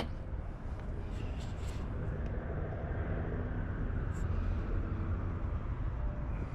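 Steady low rumble of outdoor background noise that swells a little in the middle and eases off again, with a few faint clicks.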